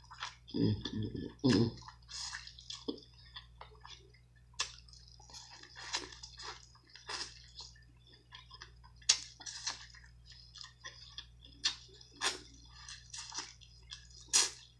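Close-up eating sounds: wet chewing and smacking mixed with sharp clicks and cracks as blue crab shell is picked apart by hand. The loudest snaps come about four and a half seconds in, about nine seconds in and near the end, with a short low hum about a second in.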